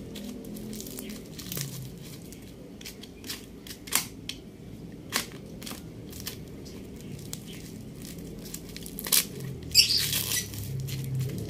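Brown paper wrapping being cut and torn off a new motorcycle exhaust pipe: crinkling, a few sharp snips, and a louder rip about ten seconds in.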